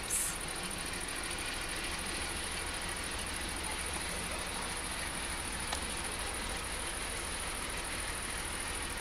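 Distant Electroputere LDE 2100 (class 060-DA) diesel-electric locomotive running, a steady low rumble under a steady high hiss. A brief sharp hissing burst comes just after the start, and a faint click near six seconds.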